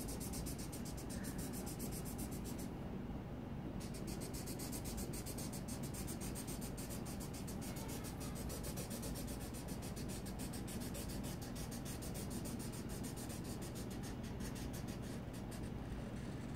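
Felt-tip marker rubbing on paper in quick back-and-forth colouring strokes, filling in a band of colour. The strokes stop for about a second roughly three seconds in.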